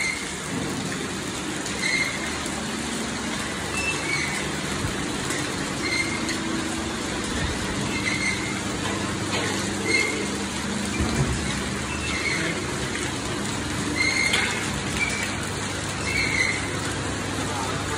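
Rotisserie oven's electric motor and chain-driven spit turning with a steady hum. A short squeak repeats about every two seconds, once per turn of the drive.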